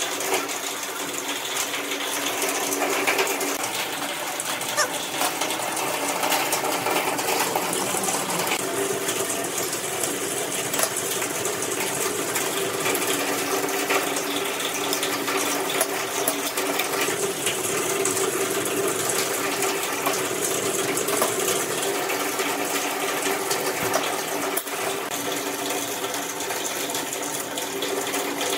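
A steady mechanical hum, with scattered light clicks and clinks of galvanized square steel tubes being handled, slid and laid against each other on a workbench.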